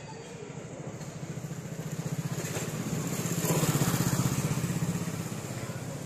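Motorcycle passing close by, its low, even engine beat growing louder, loudest about four seconds in, then fading away.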